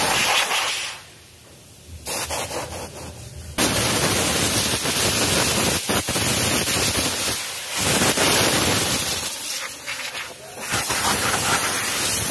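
Compressed-air blow gun hissing in long blasts, blowing dust off drum-brake lining shoes and the brake drum. The air stops about a second in, comes back weaker, then runs nearly steady from about three and a half seconds with a few short dips.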